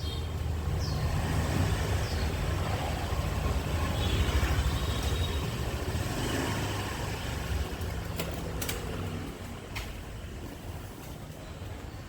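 A motor vehicle's engine running close by, a low hum that is loudest around the middle and fades over the last few seconds. A few sharp clicks come near the end.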